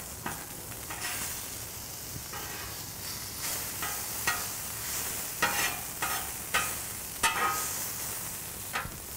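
Metal spatula scraping and turning diced green chilies on a hot steel flat-top griddle: about a dozen short, irregular scrapes over a steady frying sizzle.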